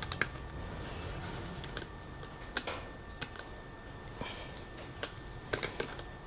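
Scattered light clicks and taps of small parts being handled while a push-button switch, washer and nut are fitted through a hole in a side cover, about eight clicks spread unevenly, a small cluster near the end.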